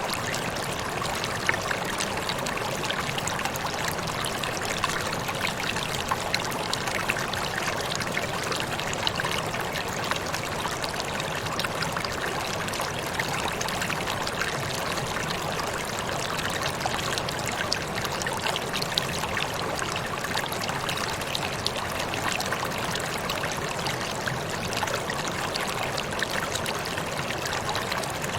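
Waterfall: water falling and splashing in a steady, even rush, with small splashes and trickles flickering through it.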